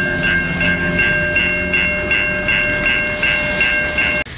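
Level-crossing warning bell ringing rapidly, about three dings a second, over the low rumble of a diesel locomotive. The sound cuts off suddenly near the end.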